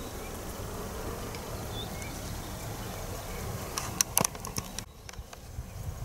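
Insects buzzing in a meadow over a steady low rumble, with a few sharp clicks about four seconds in.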